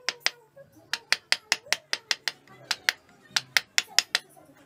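Wood chisel chopping into a block of wood in quick repeated strokes by hand, each bite a sharp click, about four or five a second.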